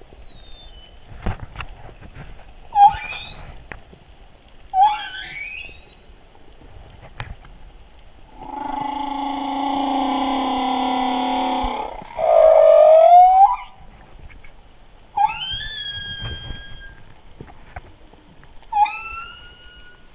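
Humpback whale song: short rising calls every couple of seconds, then a long steady moan with many overtones, a loud low upswept call, and more rising calls with stepped overtones near the end.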